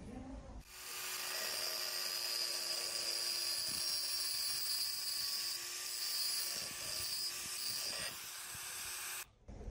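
Angle grinder with a thin disc cutting into the edge of a steel axe head, a steady high whine over a grinding hiss. It starts about half a second in and cuts off abruptly near the end.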